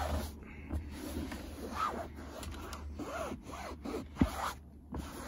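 Microfibre cloth rubbed back and forth with pressure over a damp fabric car seat, a series of rubbing strokes that work the upholstery cleaner back out of the fibres. A sharp knock about four seconds in.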